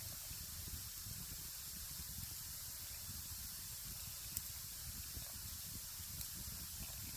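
Campfire with sausages sizzling on a small grill over it: a steady hiss, with one sharp pop from the fire about four seconds in.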